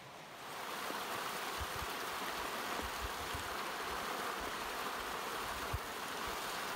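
Steady rush of flowing creek water, fading in just after the start and fading out near the end.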